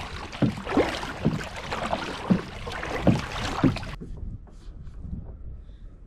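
Kayak paddle strokes: the blades dipping and splashing in the water, about six strokes over four seconds, with water rushing along the hull. About four seconds in it drops abruptly to a much quieter background.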